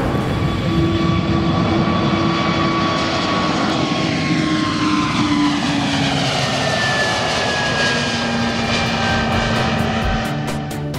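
Bombardier CS100 jetliner taking off and climbing away, its two Pratt & Whitney PW1500G geared turbofans at takeoff thrust. A steady, loud jet-engine noise carries several engine whine tones that slide down in pitch as the aircraft passes.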